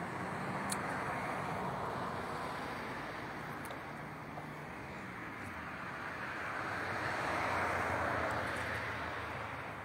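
Steady rushing outdoor background noise that swells to its loudest about seven to eight seconds in and then eases, with a faint low hum underneath.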